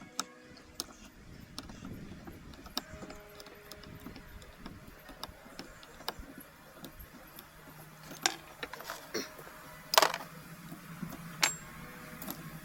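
Scattered metallic clicks and clinks of hand tools and small parts being handled while the push-rod and governor parts of an antique hit-and-miss engine are worked on. The sharpest clink comes about ten seconds in.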